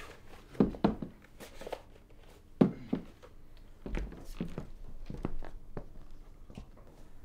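A few irregular soft knocks and rustles, the loudest about half a second in and again near three seconds, as of small movements and handling.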